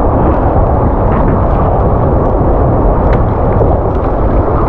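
Surf waves washing and splashing around a wader standing waist-deep in the sea: a loud, steady rushing noise.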